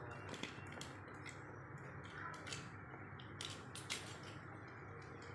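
Plastic packaging being handled and opened by hand: irregular small crinkles, clicks and taps, the sharpest about four seconds in.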